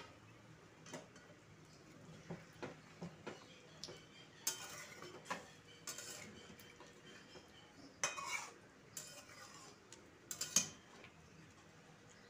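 Spatula stirring chicken pieces in watery gravy in a metal kadai, with irregular scrapes and knocks against the pan. These come in a few louder clusters in the second half.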